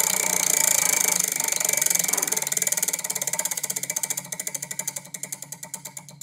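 A spun prize wheel clicking as its pointer flicks past the pegs: the clicks come fast at first and slow steadily as the wheel winds down.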